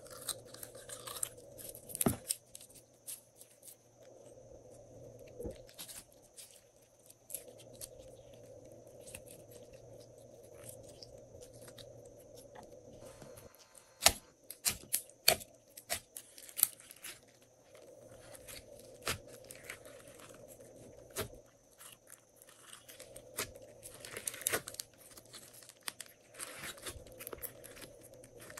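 Hands working glossy slime in a glass bowl, pulling glitter slime from a jar and then pressing and stretching it, giving sticky crackles and scattered sharp pops. The loudest pops come in a quick cluster about halfway through.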